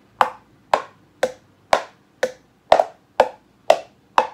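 Homemade wood block made from a milk carton and disposable chopsticks, struck with a ball-headed mallet in a steady beat of about two knocks a second, each ringing briefly.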